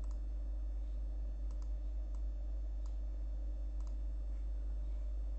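About five faint computer mouse clicks, spaced irregularly a half-second to a second and a half apart, over a steady low hum.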